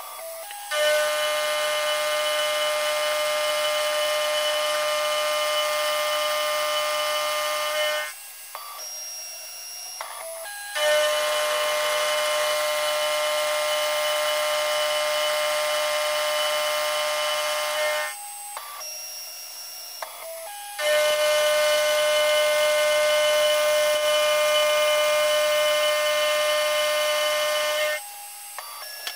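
End mill in a CNC-converted Precision Matthews PM-25MV milling machine cutting aluminium soft-jaw stock. There are three cutting passes of about seven seconds each, each a steady whine. Between the passes the spindle runs on more quietly.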